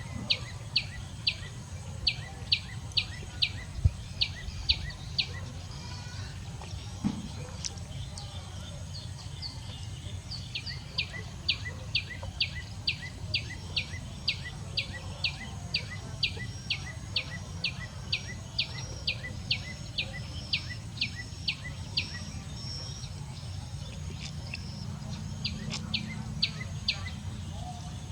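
A bird calling over and over in short, high chirps that each fall in pitch, about two a second, in long runs with a pause of several seconds early on, over a steady low background rumble.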